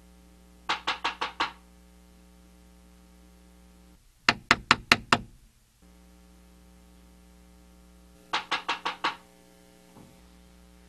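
Knocking on a door: three bursts of about five quick raps, a few seconds apart, with the middle burst the loudest.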